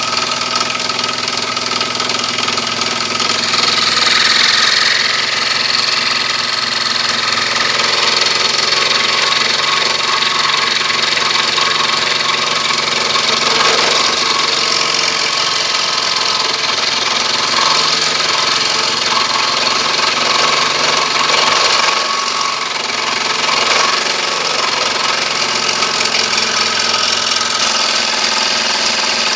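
Electric scroll saw running steadily.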